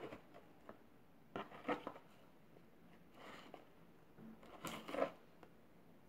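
Soft handling noises as ornaments are shifted around inside a box by hand: light rustles and small knocks, in a cluster about one and a half seconds in and a louder one near five seconds.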